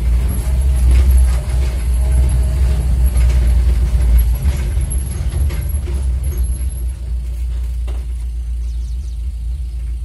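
Car engine and road noise heard from inside the cabin as a steady low rumble. The car drives along, then idles at a stop in the second half.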